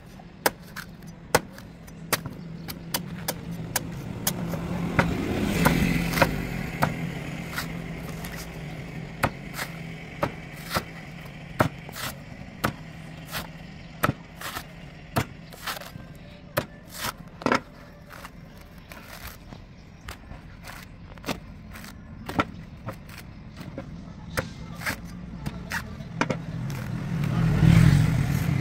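Large knife chopping and shaving the husk of a young coconut on a wooden board: a run of sharp, irregular strikes about a second apart, with scraping between them. A motor vehicle rumbles past about five seconds in and again near the end.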